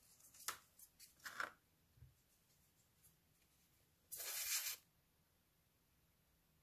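A few soft handling scrapes and taps of cardboard pieces, then about four seconds in a short hissing sputter lasting under a second as a plastic bottle of tacky craft glue is squeezed onto the cardboard joint.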